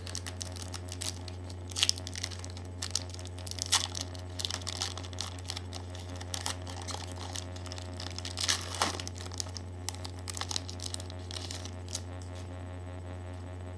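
A pack of baseball cards being opened by hand: irregular crinkling and tearing of the wrapper and packing material, over a steady low hum.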